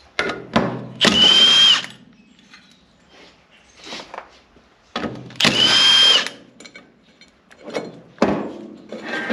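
Milwaukee M18 cordless impact tool run twice in short bursts on power steering pump bolts, each burst a rattling hammer with a high motor whine that dips as it stops. Clinks and knocks of metal parts and the tool being handled come between the bursts.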